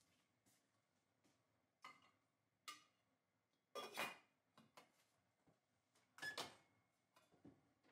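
Stainless steel pot and lid handled in a kitchen: a few light clinks, then the lid set on with a ringing clang about four seconds in. A second metallic clank follows a couple of seconds later as the pot goes onto the gas stove's grate.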